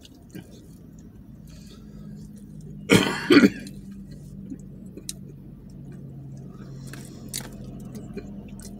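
A person coughs twice in quick succession, clearing the throat, about three seconds in, over a low steady hum.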